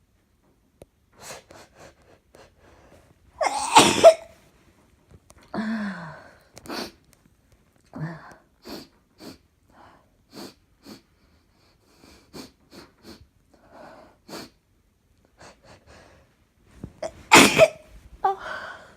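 A person sneezing loudly twice, about four seconds in and again near the end, with quick short breaths in between. A brief vocal sound falling in pitch follows the first sneeze.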